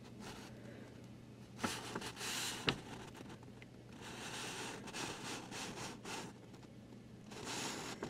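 A sheet of printer paper rustling and sliding softly as it is held and moved by hand, in several short stretches with a small click among them. A faint steady low hum runs underneath.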